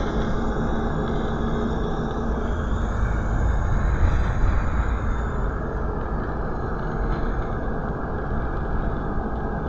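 Volvo B7RLE single-deck bus heard from inside, near its rear-mounted six-cylinder diesel engine: a steady engine rumble with road noise as the bus drives along.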